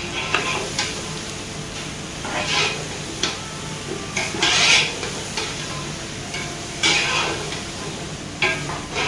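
A cooking utensil stirring and scraping food in a metal pot, in about seven irregular strokes over a steady background hiss.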